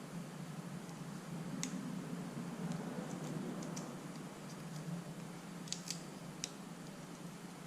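Scattered light clicks and ticks of small parts being handled, about half a dozen, over a low steady hum.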